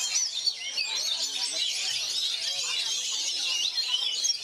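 Oriental magpie-robins (kacer) singing nonstop: a dense, continuous stream of fast, varied whistles and chirps, several birds overlapping.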